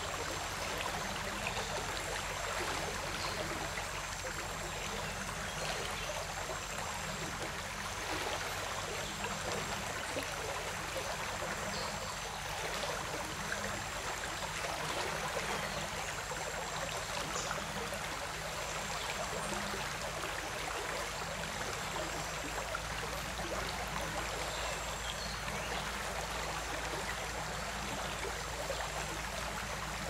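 Steady rush and splash of shallow stream water, with water swishing around legs as someone wades upstream through it.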